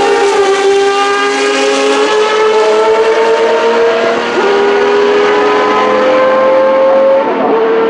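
Mazda 787B's four-rotor rotary engine at full throttle as the car accelerates away. Its high engine note climbs steadily and drops back at upshifts, about four and seven seconds in.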